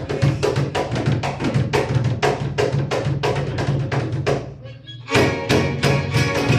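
Traditional mariachi son played on violins, arpa grande and strummed guitars. The harp's soundbox is beaten by hand (cacheteo) in rapid, steady strokes over the harp's bass line. The playing nearly stops for a moment about four and a half seconds in, then everyone comes back in together with a hard stroke.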